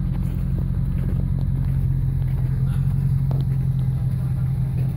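Jeep engine idling nearby, a steady low rumble with an even hum, with a few faint clicks over it.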